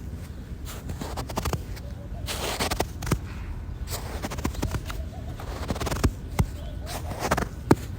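Footsteps crunching in snow, each step a short crunch, at an uneven pace with sharp clicks in between.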